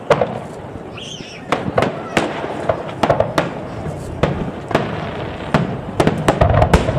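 Aerial fireworks shells bursting over water: a string of sharp bangs at irregular intervals, coming faster near the end, over the steady low rumble of the display.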